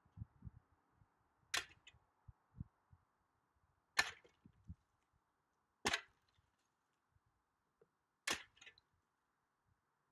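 Four sharp cracks about two seconds apart, each a hard blow from a tool swung overhead, with a few soft low knocks between the first ones.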